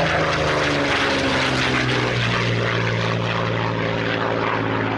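Propeller aircraft engine running steadily, its tone shifting lower about two seconds in.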